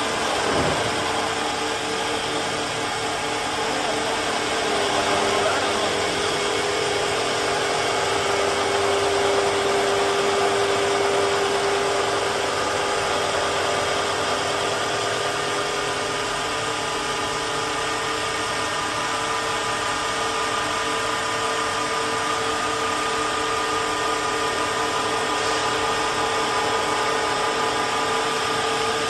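CNC wood turning lathe running with a steady machine whine of several held tones over a noisy hum. A pitch drops sharply right at the start.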